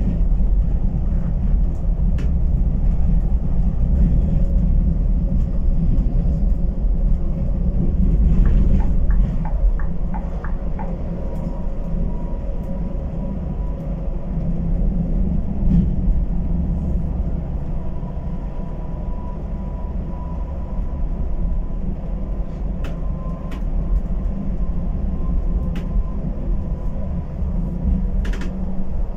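Cabin sound of an Irizar i8 coach on a Scania chassis under way: the steady low drone of the diesel engine and road noise, heard from the driver's seat. A short run of faint ticks comes about nine seconds in, and a faint thin whine comes and goes through the middle.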